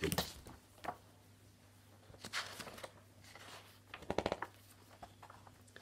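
Pages of a large picture book being handled and turned: soft paper rustles, then a quick flurry of flicks as a page turns about four seconds in.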